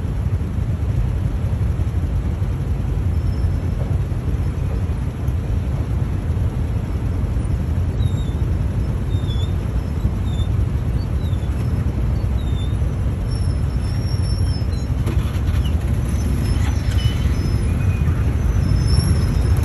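Wind buffeting the microphone: a steady low rumble with no engine note. From about eight seconds in, faint short high chirps come through.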